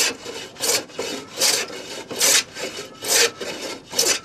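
Metal hand plane shaving a wooden plank in a steady rhythm: about six push strokes, one every three quarters of a second, each a short scraping swish.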